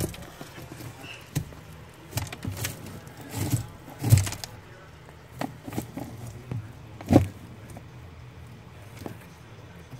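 Irregular rustles, scrapes and sharp knocks of a large lizard pushing through dry wood-chip bedding while it takes feeder mice. The loudest knocks come about four and seven seconds in, over a low steady hum.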